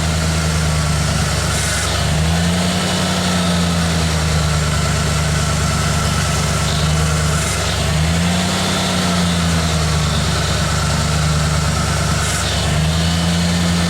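Freshly overhauled engine of a 1987 Ford Bronco idling on its first run after installation, its speed rising briefly and settling back three times.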